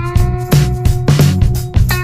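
Instrumental background music with a steady beat: drum hits about twice a second over a bass line, with held, plucked-sounding notes on top.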